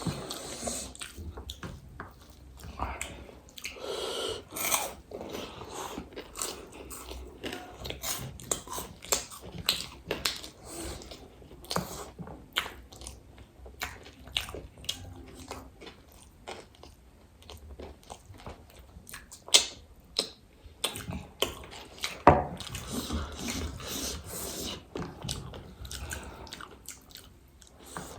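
Close-up eating sounds: chewing and crunching of crisp street snacks, with many irregular sharp crunches, several a second.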